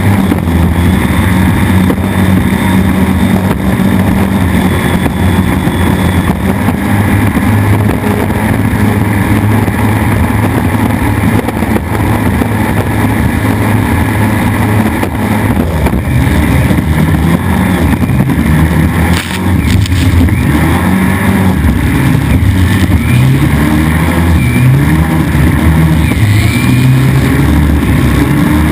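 4.2-litre race boat engine running hard through open exhaust stacks, with wind and water rushing past. About two-thirds through the level dips briefly, then the engine pitch rises and falls a few times.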